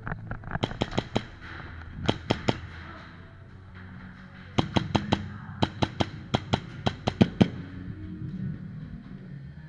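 Airsoft gun shots, sharp cracks fired in short strings: a few about a second in, three quick ones around two seconds in, and a longer run of shots from about halfway to near the end.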